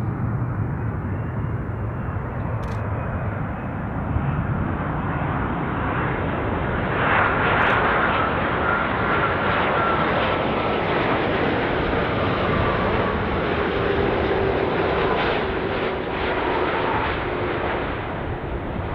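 KLM Boeing 787-9 Dreamliner on short final with its two GEnx turbofans at approach power: a steady jet rumble with a whining fan tone that slowly falls in pitch from about seven seconds in as the airliner passes the microphone.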